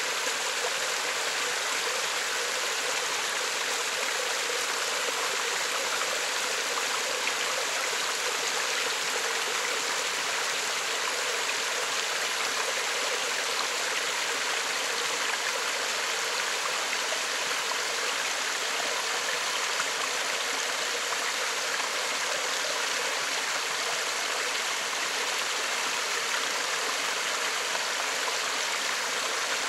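Small woodland stream running over a low cascade: a steady, even sound of flowing and splashing water.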